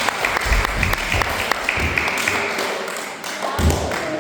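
Audience of young children clapping, a dense run of claps that fades off near the end.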